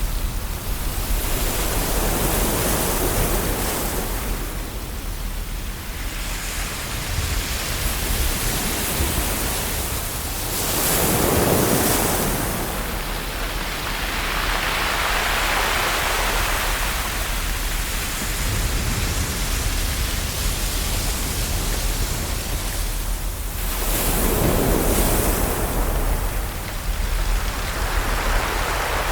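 Ocean waves washing onto a shore: a steady rush of surf that swells and fades in several slow surges, each building and falling away over a few seconds.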